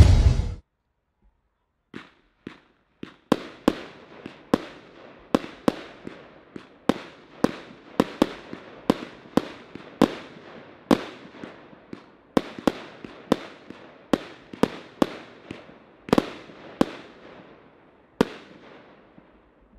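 VIP cake B, a 25-shot 500-gram consumer fireworks cake, firing its shots in a steady run of about two a second, each a sharp bang with a short fading tail. The volley starts about two seconds in and stops about two seconds before the end.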